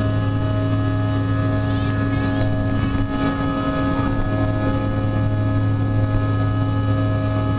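Cabin noise of a CRJ200 regional jet climbing after takeoff: a steady rush of air and engine noise from its rear-mounted GE CF34 turbofans, with a low drone and several steady high whining tones.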